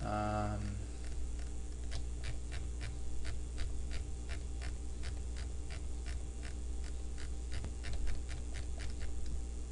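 A run of light, evenly spaced computer input clicks, about three a second, as a font list is stepped through one entry at a time, over a steady low electrical hum. A short pitched hum sounds in the first second.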